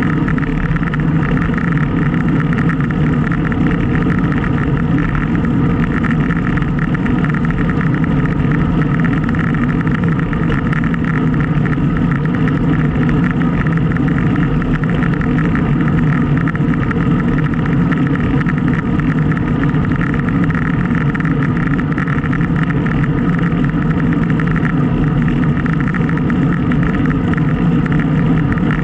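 Steady rush of wind and road noise on the microphone of a bike-mounted action camera during a ride, unbroken and loud throughout.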